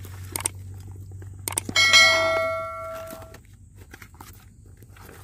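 A few light clicks, then a single bell-like metallic ring about two seconds in that fades out over about a second and a half.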